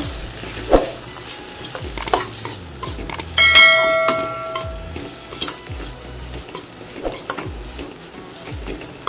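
A steel spoon stirring and scraping spiced capsicum and onion around a stainless steel pan, with repeated scrapes and knocks over sizzling. About three and a half seconds in, a bell-like metallic ring sounds for about a second.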